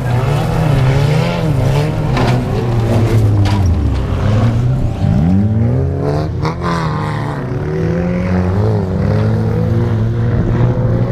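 Engines of wreck-race cars revving and accelerating on a dirt track, their pitch rising and falling over and over; one revs up sharply about five seconds in.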